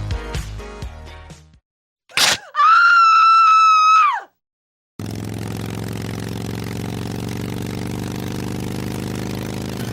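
A pop track fades out to silence. About two seconds in, a sharp click is followed by a single high, held cry-like tone lasting about a second and a half, which slides down as it ends. After a short gap, a steady low drone with layered tones starts about five seconds in and holds.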